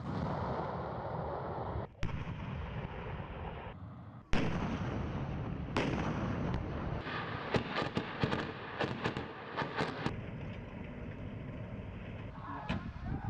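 Heavy guns firing in a military live-fire exercise, from armoured vehicles and artillery. Big blasts with long echoing tails come about 2, 4 and 6 seconds in. A run of quicker, sharper shots follows over a few seconds.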